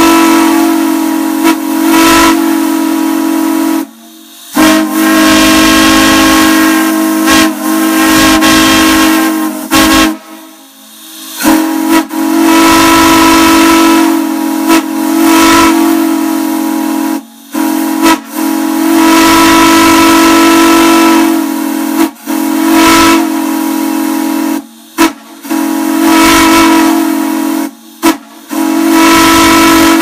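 Two J1 Potomac three-chime steam whistles blowing on a steam manifold: a loud, steady chord of several notes over a hiss of steam. They sound in long blasts broken by brief cut-offs, with longer pauses about four seconds and ten seconds in.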